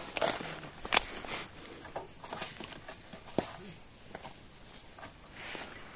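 Steady, high-pitched chorus of insects in an oil palm plantation, holding one even note. A sharp click cuts through it about a second in, and a fainter one a little past three seconds.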